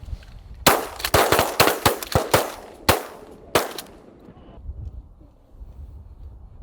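A volley of about ten shotgun shots from several hunters firing at once, packed into about three seconds, each shot trailing off briefly.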